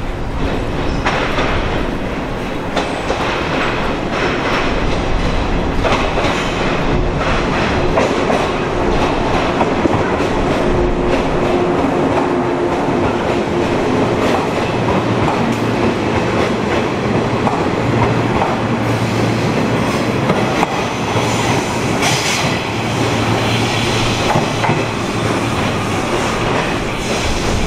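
JR 115 series electric train rolling past close by, its wheels clattering over the rail joints and points, with a low steady hum through the later part.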